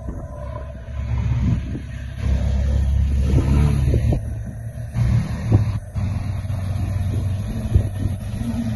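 Ferrari 328 GTS V8 and Ferrari F12 V12 engines running at low speed as the cars pull away across the plaza one after the other. The rumble grows louder about two seconds in as the F12 comes close.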